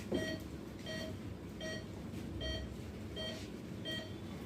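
Operating-theatre patient monitor beeping in short, evenly spaced pips, about four every three seconds: the pulse oximeter sounding once for each heartbeat of the patient.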